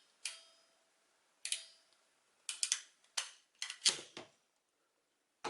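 Sharp clicks and light metal taps from handling a wire crimping tool and small connector pins. Two single clicks with a short metallic ring come first, then a quick cluster of about eight clicks and knocks near the middle.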